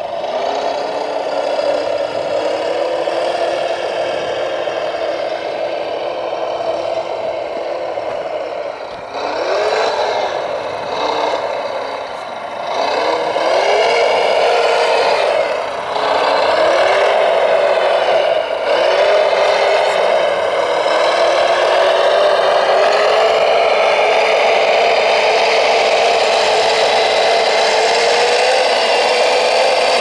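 Radio-controlled scale model construction vehicles, a wheel loader and a 6x6 truck, driving under power: a steady motor whine that rises in short repeated sweeps in the middle as they speed up and slow down, then climbs slowly in pitch near the end.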